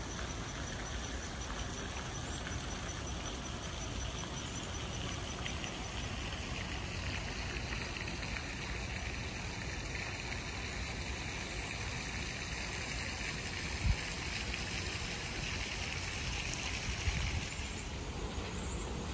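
Steady outdoor background rush with no clear single source, and a brief low bump about fourteen seconds in and another near seventeen seconds.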